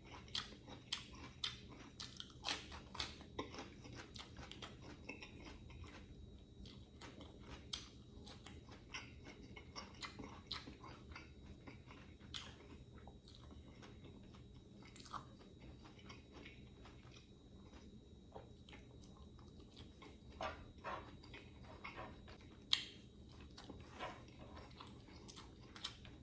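A person chewing and biting food, with many sharp, irregular crisp crunches, busiest near the start and again near the end.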